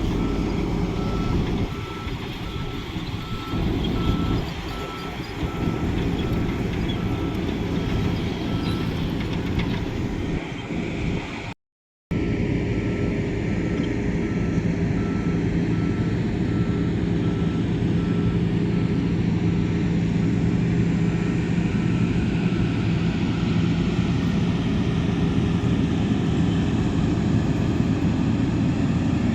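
Heavy construction machine's engine running steadily, with a reversing alarm beeping about once a second. The sound drops out completely for half a second near the middle.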